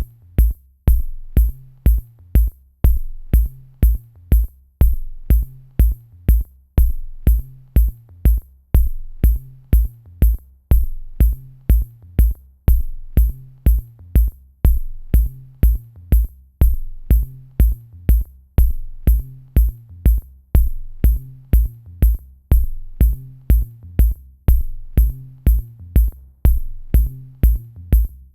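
Background music with a steady electronic drum-machine beat: deep bass kicks and crisp high clicks on each beat.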